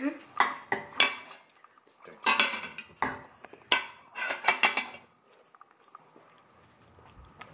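Metal fork clinking and scraping against a dinner plate as spaghetti is twirled and eaten: a string of irregular sharp clinks that stops about five seconds in.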